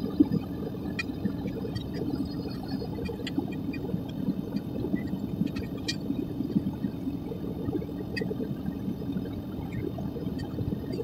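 Propane burner of a Devil Forge melting furnace running steadily with a continuous rushing sound, flames venting from the lid, with occasional faint ticks and crackles over it.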